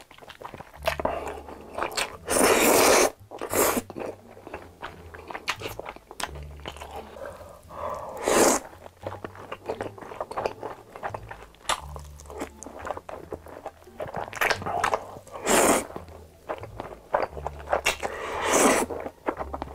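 Close-miked eating: big mouthfuls of spicy instant noodles and tteokbokki slurped in and chewed, with wet mouth clicks throughout. There are five or so loud slurps, the longest about two seconds in.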